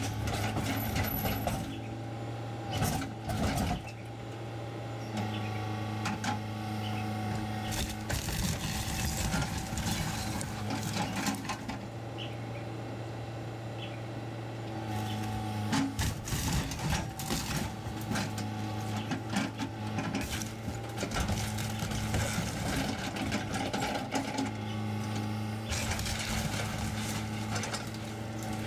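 Excavator's diesel engine running steadily under load, with irregular clanks, knocks and crunching as it works debris, heaviest in the middle stretch.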